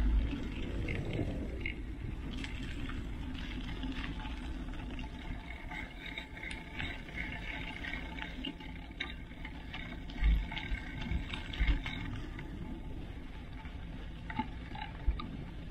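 Mountain bike tyres rolling over a dirt and gravel trail: a steady crunching rush with scattered small clicks and rattles, and two low thumps about ten and twelve seconds in.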